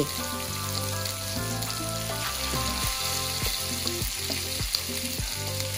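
Chopped pork sisig sizzling in melted butter on a hot sizzling plate. Background music with held notes plays underneath.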